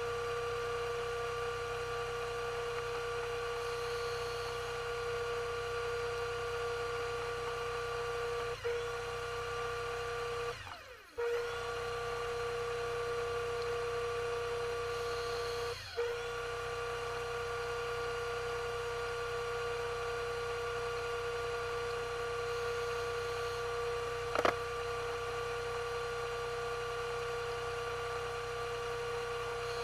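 Underwater scooter (diver propulsion vehicle) motor running with a steady electric hum heard underwater. It drops out for a moment a few times, once for about a second, and there is a single sharp click later on.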